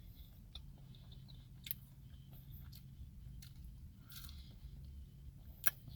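Quiet chewing of french fries dipped in sauce, with a few small clicks and mouth noises over a faint steady low hum.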